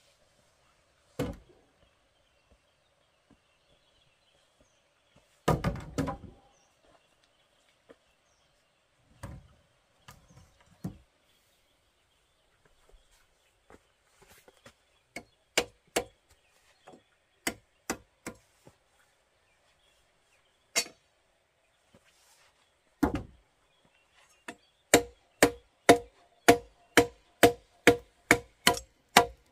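Machete chopping into a freshly cut wooden log to notch it: sharp strikes, scattered at first, then a steady run of about two chops a second over the last few seconds, the loudest part. Before that, a few separate knocks and heavier thumps, the heaviest about six seconds in.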